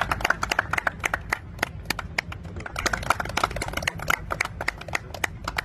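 Rapid, irregular clicking of several camera shutters, a few clicks a second and sometimes in quick runs.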